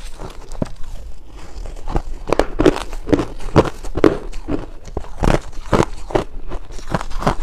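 Crushed ice being chewed close to the microphone: sparse faint crackles, then from about two seconds in a steady run of crunches, about two a second.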